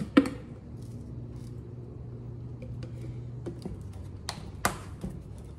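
Light clicks and taps from a plastic grated-Parmesan shaker canister and a small metal measuring cup as cheese is shaken into the cup. One sharp click comes just after the start and another about four and a half seconds in, with a low steady hum underneath for the first few seconds.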